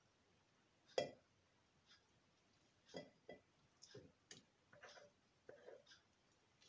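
Faint scattered clinks and knocks of kitchen utensils against an enamelled saucepan as ointment ingredients are put in. The loudest clink, about a second in, rings briefly; several softer knocks follow.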